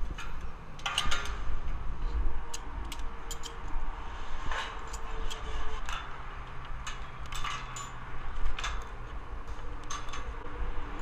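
Scattered light metallic clicks and clinks of hands and hardware against a billboard's steel frame and catwalk, over a steady low rumble of wind on the camera's microphone.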